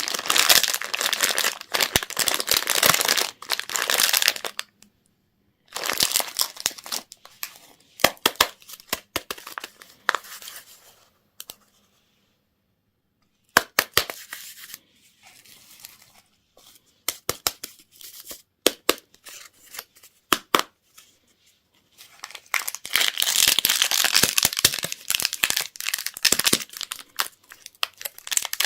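Candy and toy wrappers being crinkled and torn open by hand. Dense crackling rustles for the first few seconds and again near the end, with scattered sharp clicks, lighter handling and a brief silence in between.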